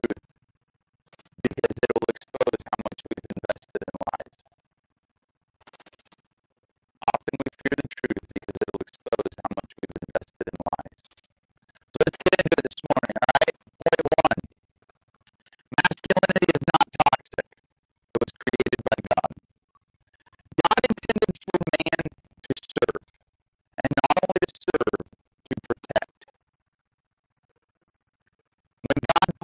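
A man's voice, garbled and choppy, cutting in and out in stretches of a few seconds with dead silence between them.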